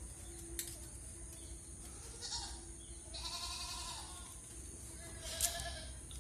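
Goats bleating in a shed: three calls, about two, three and five seconds in, the middle one the longest.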